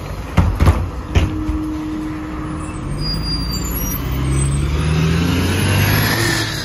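MAZ-203 city bus closing its doors with a few knocks, then its engine rising in pitch as the bus pulls away from the stop, loudest near the end as the rear of the bus passes.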